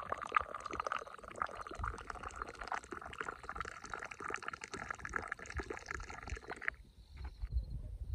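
Liquid poured in a steady stream while mint tea is being made, stopping abruptly near the end, followed by faint handling knocks.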